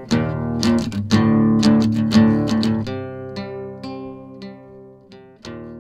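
Acoustic guitar music: a quick run of strummed chords, then single plucked notes left ringing as the music fades down.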